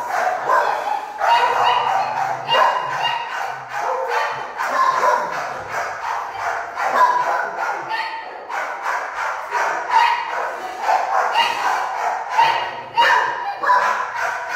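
Many shelter dogs barking at once, a loud, continuous chorus of overlapping barks and yips with no pause.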